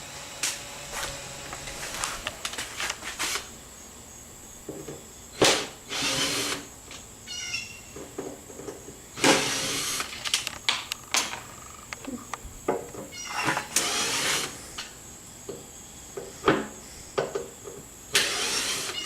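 Handheld power drill/driver run in short bursts about five times, driving fasteners while a booth is taken apart. Between the bursts come sharp clicks and knocks of parts being handled.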